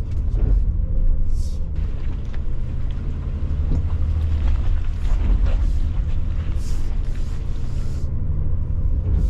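2023 Honda Pilot TrailSport's 3.5-litre V6 and drivetrain giving a low steady rumble as it climbs a steep, rocky, muddy slope under throttle, with scattered short knocks as the tyres and suspension work over rock.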